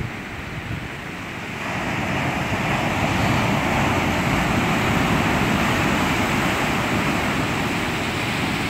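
Ocean surf breaking and washing over shore rocks: a steady rush of waves that grows louder about two seconds in and stays loud.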